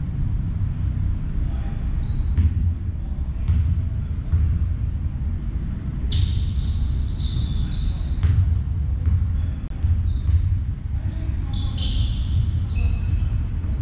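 Basketball game play on an indoor court: a ball bouncing with scattered knocks, and sneakers squeaking sharply on the floor, many squeaks from about halfway through, over a steady low rumble.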